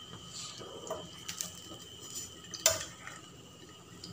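A few clinks and scrapes of a steel slotted spoon against a non-stick frying pan, the loudest about two-thirds of the way through, over the faint sizzle of a medu vada shallow-frying in oil.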